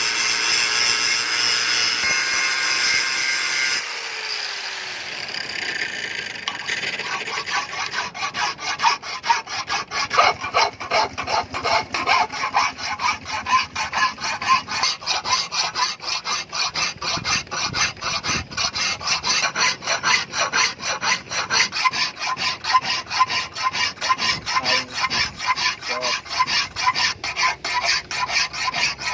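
A few seconds of background music, then steady rhythmic hand filing, about three back-and-forth strokes a second.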